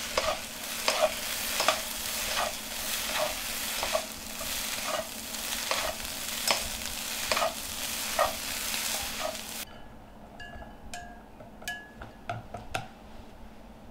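Shredded chicken floss being stir-fried in a hot pan: steady sizzling, with a spatula stroke through it about every three-quarters of a second. Nearly ten seconds in, the sizzling cuts off abruptly and a few light clinks of a spoon on a glass bowl follow.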